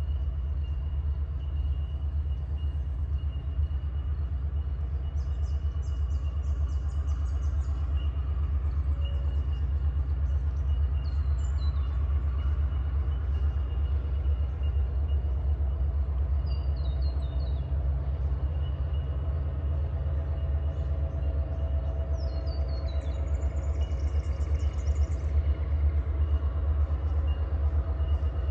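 Steady low vehicle rumble that holds even throughout, with a faint high whine and a few short, high, falling chirps over it.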